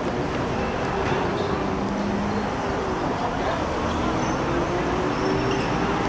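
Football crowd in the stands: a steady hubbub of many voices, with a few drawn-out calls that rise and fall.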